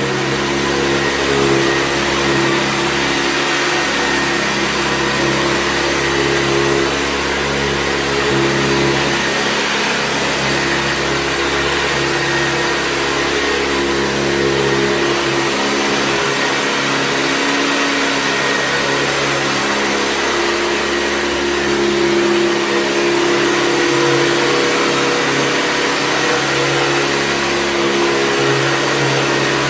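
Hoover Convertible U4193 upright vacuum cleaner running steadily: a constant rush of air over a motor hum, with a faint high whine and a slight wavering in the pitch.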